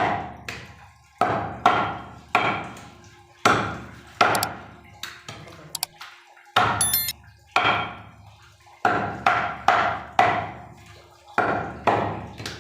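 A butcher's knife chopping through beef onto a chopping block: a run of about seventeen sharp chops, mostly in quick pairs and threes about half a second apart, with short pauses between the runs.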